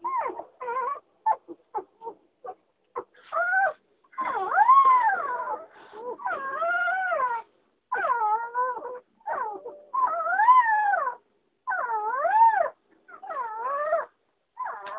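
Doberman puppies whining and howling: quick short yelps in the first few seconds, then a string of longer high whines, each rising and falling in pitch, about a second or more apiece.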